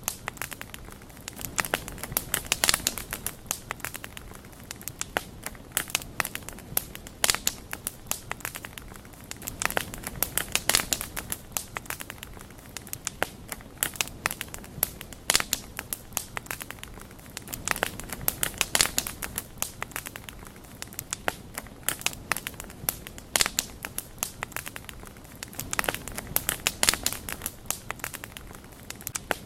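Wood fire crackling: dense, irregular sharp snaps and pops over a low steady hiss, swelling into louder clusters every few seconds.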